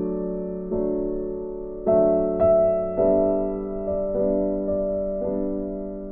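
Background music: slow, gentle piano chords, each struck and left to fade before the next.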